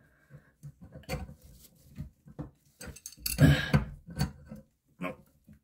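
Metal clinks and knocks of an adjustable wrench handled around a toilet supply-line fitting, as a supply nut is snugged up. A series of short, irregular clicks, the loudest a little past the middle.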